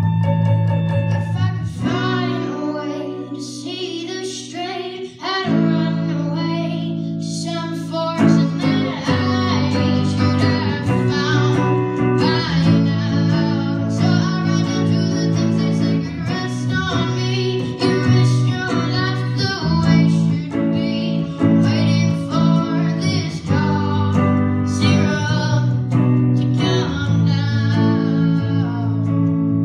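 A rock song played live on guitars with a sung melody over them.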